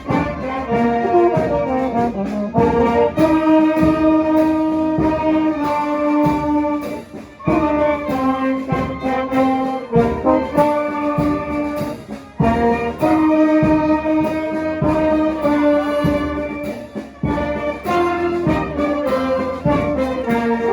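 Brass band of trumpets and trombones playing a melody in held notes over a regular drum beat.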